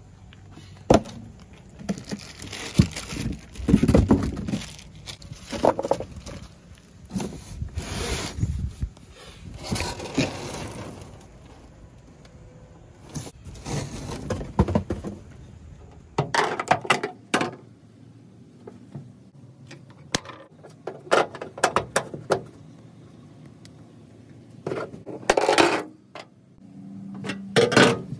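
Unboxing and handling noises: cardboard and packing paper rustling and scraping, with irregular metal clinks and clanks from the steel parts of a B&W fifth-wheel hitch. The clinks come as sharper, separate knocks in the second half.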